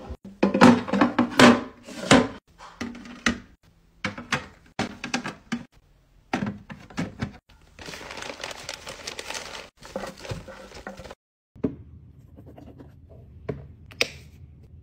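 Plastic organizers and toiletry containers set down and arranged in a wooden drawer: a quick run of knocks and clacks. Then a plastic bag crinkles for about three seconds, and a bottle cap clicks once near the end.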